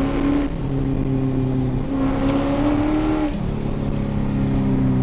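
A modified Holden VT Commodore's LS1 V8, making 415 rwhp, running hard under throttle on the track. Its note drops suddenly about half a second in, climbs back about two seconds in, and drops again a little after three seconds.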